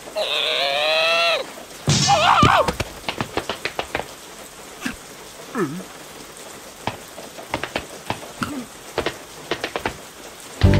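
Cartoon rain scene: a cartoon larva's wordless vocal call falls in pitch over the first second and a half. A short warbling call follows about two seconds in, then scattered raindrops drip and patter at uneven intervals.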